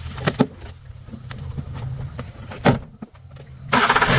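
A vehicle engine running with a steady low hum and a few sharp clicks. The hum drops away about three seconds in, then a loud vehicle horn blast starts near the end.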